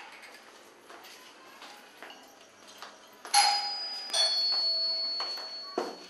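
Faint light ticks, then two ringing strikes less than a second apart, each leaving a clear bell-like tone that slowly dies away.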